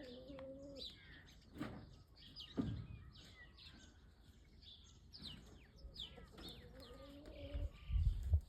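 Small birds chirping over and over, with two longer, lower drawn-out calls from another animal, one at the start and one after about six seconds. A few dull low thumps, the loudest near the end.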